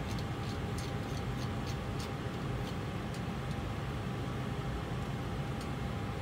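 Steady low rumble of simulated engine and airflow noise in an Airbus A320 flight simulator cockpit, with a faint steady tone and light scattered clicks a few times a second.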